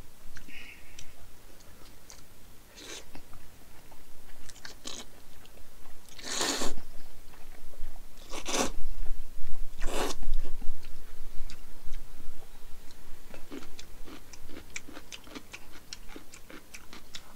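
A man eating jjajangmyeon noodles: three loud slurps in the middle, then quick, close-up chewing and mouth clicks.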